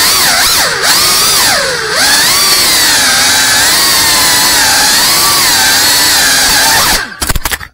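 FPV quadcopter's brushless motors and propellers whining, the pitch swinging up and down with the throttle. About seven seconds in, a rapid series of sharp knocks, and the motor sound cuts off.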